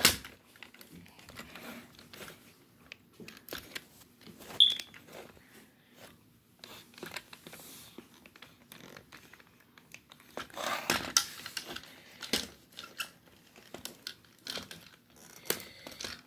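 Plastic parts of a Transformers Cyberverse Optimus Prime toy being handled and pushed into place during transformation: scattered light plastic clicks and rattles, with a sharp snap about four and a half seconds in, the loudest sound, and a busier stretch of clicking and handling around eleven seconds.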